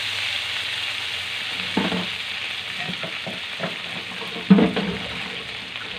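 Tomato, onion and garlic sizzling in hot oil in a nonstick frying pan, the sizzle slowly dying down, with a few short knocks, the loudest about four and a half seconds in.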